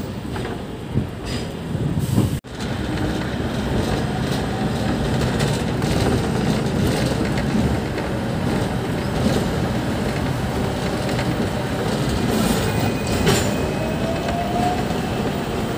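Hong Kong double-decker electric tram running along street rails, a steady rumble and rattle of wheels on track. The sound cuts out for an instant about two seconds in, and a faint rising whine comes near the end.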